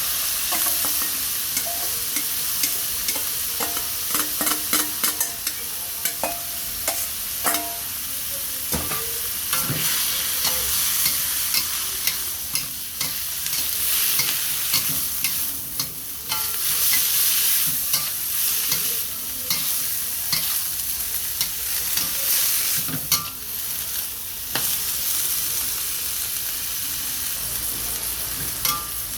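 Food sizzling as it fries in a hot pan while being stirred, with frequent clicks and scrapes of the utensil against the pan over a steady hiss.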